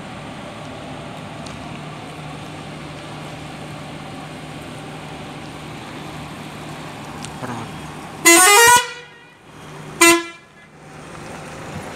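Scania multi-axle coach's diesel engine running steadily at low speed as it approaches, then its horn sounding two loud blasts: a longer one about eight seconds in and a short one about two seconds later.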